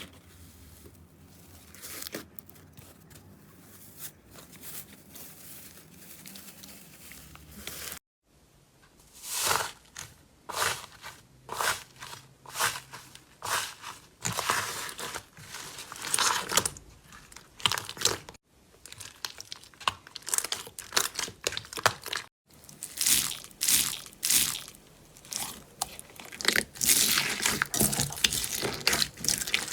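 Slime being squeezed, poked and pressed by hand, making repeated crisp crackling, crunching and squishing sounds. It comes in several short clips: softer at first, with crisper, louder crackles after about eight seconds.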